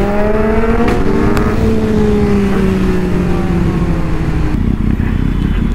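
Kawasaki motorcycle engine pulling, with a gear change about a second in. The revs then fall slowly as the bike slows, and near the end the engine note drops away under wind and road noise.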